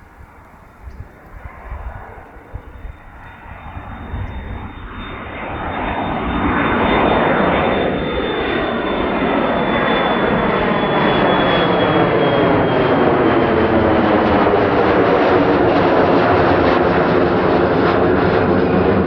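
Jet aircraft passing, its engines growing louder over the first several seconds and then holding at a loud, steady rumble. A high engine whine slides slowly down in pitch and fades about halfway through.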